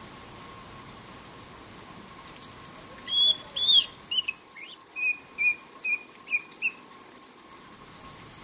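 Black-headed caique calling: two loud, high, ringing calls about three seconds in, then a quick run of shorter, lower chirps that stops about seven seconds in. Steady rain patter underneath.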